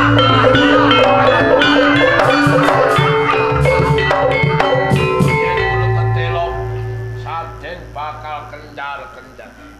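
Javanese gamelan playing, with struck metallophones and hand-drum strokes over deep gong tones; a low gong is struck again about six seconds in. The playing thins out and fades away over the last few seconds.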